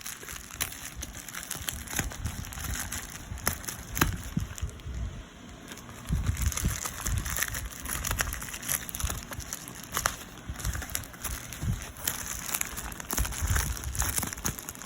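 Parcel packaging being handled and opened by hand: crinkling and crackling plastic with many sharp clicks, and low bumps from handling near the microphone.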